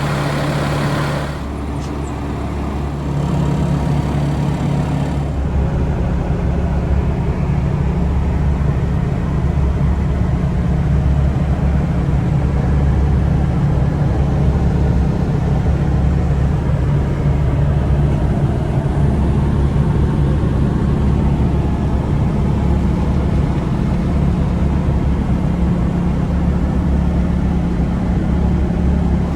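Bobcat S86 skid-steer loader's diesel engine running. Its note dips about a second in and picks up again a few seconds later, then runs steadily.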